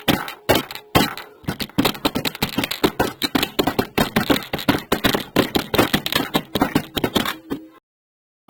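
Rapid, irregular knocking or tapping on a hard object, several hits a second, which cuts off abruptly near the end.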